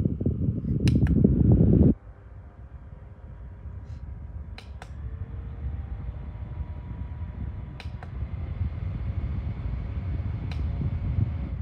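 OCOOPA battery-powered mini desk fan running close to the microphone, a loud low rush of air that drops abruptly about two seconds in to a quieter steady whir with a faint motor hum. A few sharp clicks are spaced a few seconds apart.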